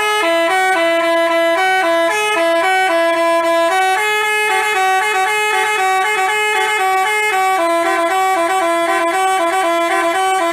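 Telolet basuri bus horn playing a tune: a loud run of steady, stepped notes that change several times a second, with two lines of notes moving together.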